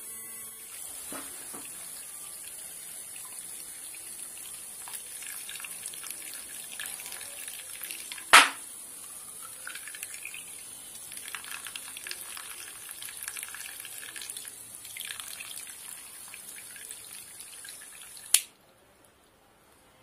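Small battery-powered DC water pump running with a steady high whine while water pours from a toy pipe's spout and splashes into small plastic pots. A sharp knock comes about eight seconds in, and near the end a click cuts the pump and water sound off at once: the pump is switched off.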